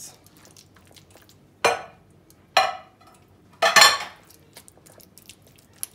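Kitchenware clatter: a glass mixing bowl and a silicone spatula knocking and scraping against a ceramic serving plate as the salad is scraped out, three sharp clinks about a second apart, the last the loudest.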